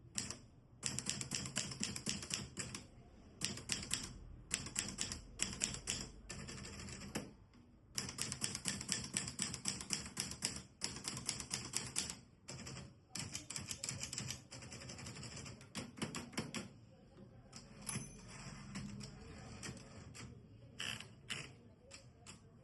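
Olivetti Lettera 33 manual typewriter being typed on: runs of quick, crisp keystroke clacks with short pauses between bursts, thinning out to scattered strokes near the end.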